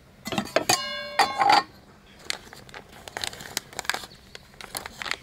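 Metal camping cookware being handled: a pot lid and a Trangia frying pan clank together with one ringing metal clang about a second in, followed by lighter clinks and taps.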